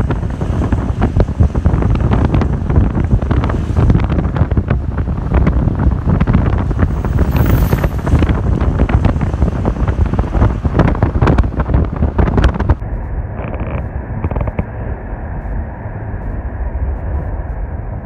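Wind buffeting the microphone over the rumble of a vehicle driving along a road. About two-thirds of the way in it changes abruptly to a quieter, duller steady drive noise.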